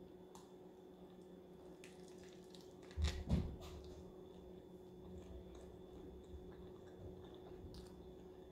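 Close-miked chewing of a lettuce wrap filled with shaved beef, peppers and mozzarella: soft wet mouth clicks and smacks, with a louder crunch or smack about three seconds in. A faint steady hum runs underneath.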